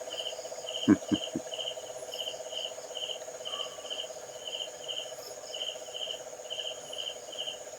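Chorus of crickets and other night insects: a rhythmic chirping about two or three times a second over a steady high-pitched trill and a lower buzzing trill. A few soft knocks come about a second in.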